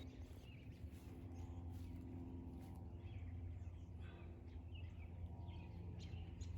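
Quiet outdoor ambience: scattered small bird chirps over a steady low hum.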